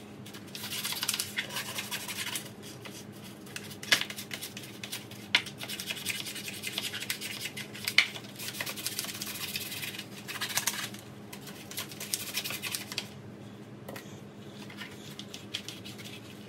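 Toothbrush scrubbing the drawers of a tackle box in bursts of quick rasping strokes with short pauses between them. A few sharp clicks or knocks fall in among the strokes.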